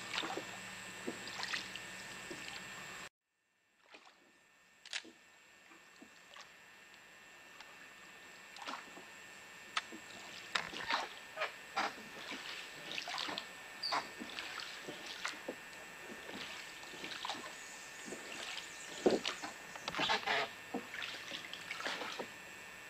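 Oars of a rowboat dipping and splashing in river water, with water trickling and dripping, as irregular small splashes over a faint steady hiss. The sound drops out completely for a moment about three seconds in.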